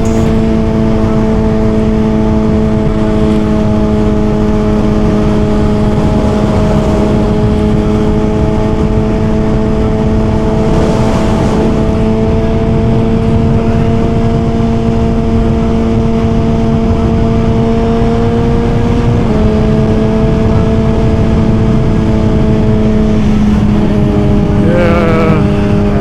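Suzuki GSX-R1000 inline-four engine running at a steady cruising speed, with wind rushing over the helmet-camera microphone; the engine note drops slightly about two thirds of the way in.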